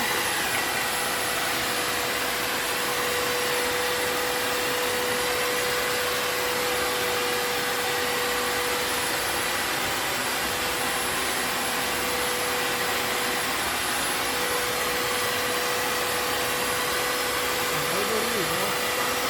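Vacuum cleaner running steadily, a constant even rush of air with a steady whine.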